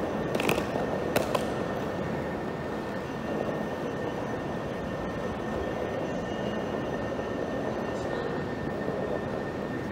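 Steady vehicle running noise with a thin, constant whine above it and two sharp clicks about half a second and a second in.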